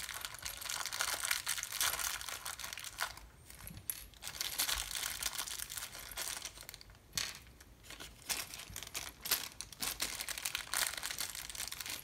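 Small clear plastic parts bag crinkling and rustling as fingers work it open, in irregular crackly bursts with short pauses.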